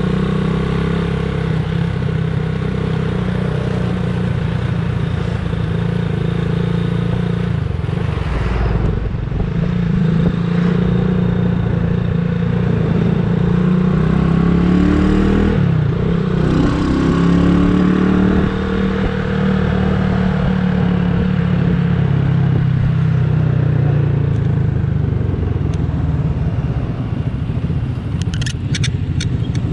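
Motorcycle engine running under way, heard from the rider's seat. Its pitch dips and climbs again about halfway through. A few sharp clicks come near the end.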